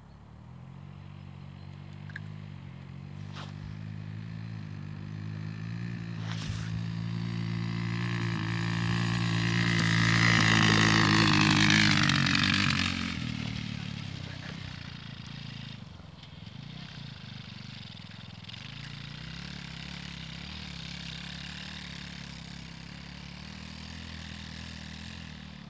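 Small off-road buggy's engine running at a fairly steady pitch, growing louder as it passes close about ten to twelve seconds in, then fading as it drives away across the field.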